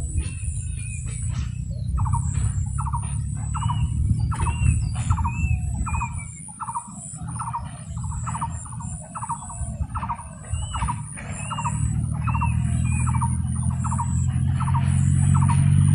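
An animal, most likely a bird, calling over and over: a short squeaky note repeated evenly, a little more than once a second. Under it runs a steady low rumble that grows louder near the end.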